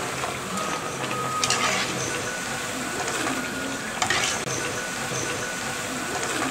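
Batch of mini thattai (rice-flour crackers) deep-frying in hot oil: a steady bubbling sizzle, briefly louder twice, about one and a half and four seconds in.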